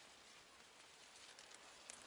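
Near silence: faint outdoor ambience, with a few soft ticks in the second half.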